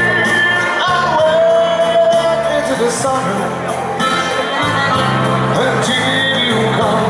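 A man singing dance music to his own accordion, over a bass line and a steady beat. A long held note around the middle.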